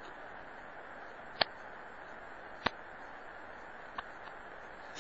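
Steady hiss with three sharp, short clicks about a second and a quarter apart, and another click at the very end.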